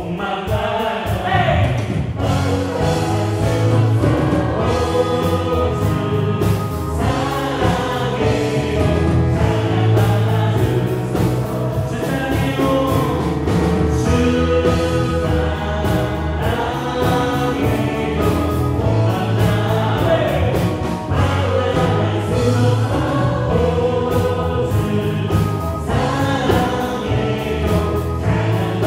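Live church worship band playing a gospel praise song: drum kit, electric and bass guitars and keyboards, with a group of voices singing along.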